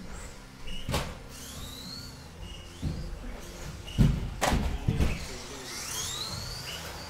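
RC buggies racing on an indoor carpet track: electric motors whining, rising in pitch as they accelerate. Several sharp knocks come through, the loudest about four seconds in.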